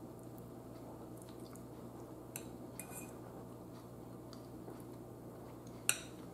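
A metal fork clicking lightly against a bowl a few times while picking up food, the sharpest click near the end, over a faint steady hum.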